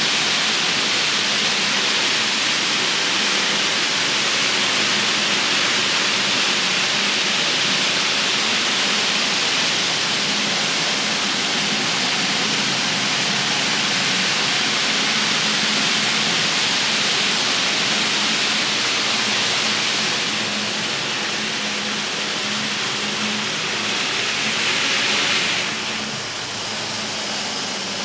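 Steady hiss with a faint low hum underneath from an N-scale model train layout's sound effects, dropping slightly about 26 seconds in.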